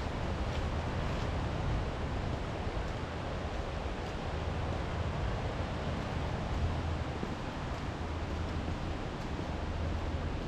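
Steady wind, with a low rumble of wind buffeting the camera's microphone.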